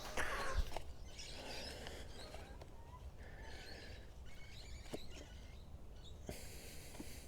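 Rustling of leaves and netting as guavas are picked by hand from a small tree, loudest in the first second, with a few light knocks. Faint bird chirps now and then.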